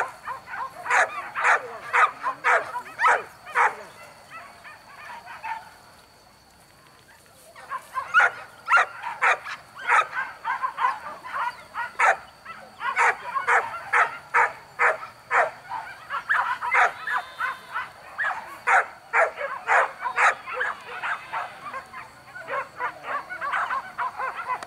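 Hunting dogs on a wild boar hunt barking in a steady run of short, sharp barks, roughly two a second. The barking fades out about four seconds in, stops for about two seconds, and starts again.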